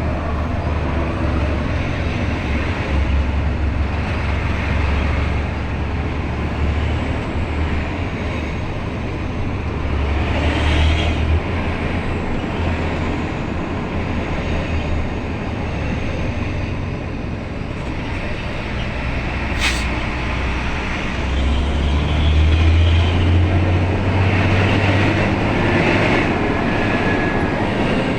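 A vehicle engine running with a steady low drone under road and traffic noise, in a slow-moving queue. A single sharp click sounds about twenty seconds in.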